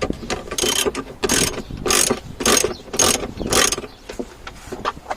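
Ratchet wrench loosening a 10 mm bolt, rattling in about six back-strokes roughly two a second, then a few lighter clicks near the end.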